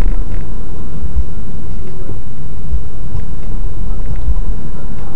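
Loud, steady low rumble of a car driving, with engine and road noise heard from inside the cabin through a dash camera's microphone.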